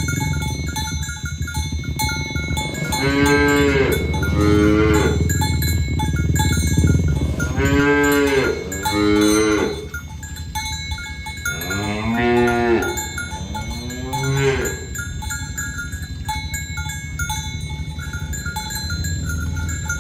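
Cattle mooing: six long calls in three close pairs, each pair about four seconds after the last, with no calls in the last few seconds. Under them runs a steady clinking of bells.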